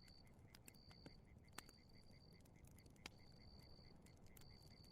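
Faint crackling fire, with scattered soft pops and clicks, and crickets trilling in spells behind it.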